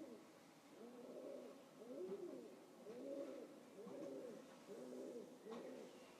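A pigeon cooing faintly, a run of low, arching coos repeated about once a second.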